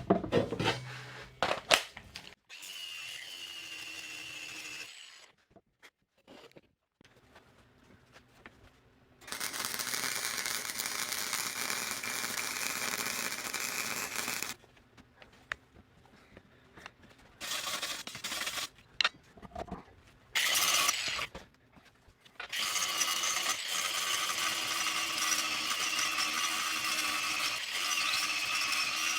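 A handheld power tool working on steel, run in several bursts: a short run a few seconds in, a longer run of about five seconds, two brief ones, then a long run of about six seconds near the end, each a steady whine over a noisy hiss.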